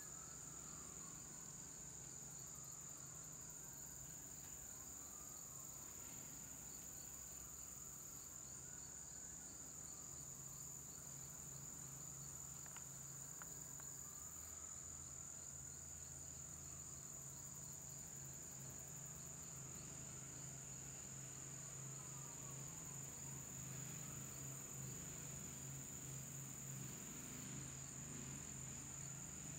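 A steady high-pitched insect trill, with faint whistle-like glides rising and falling every second or two and a low hum underneath.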